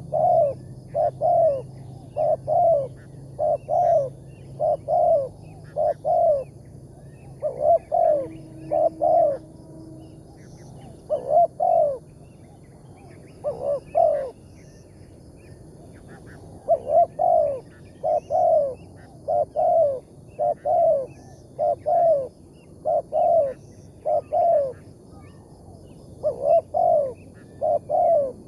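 Spotted doves (tekukur) cooing: a long series of short, falling coos repeated in quick runs, broken by a few pauses of a second or two.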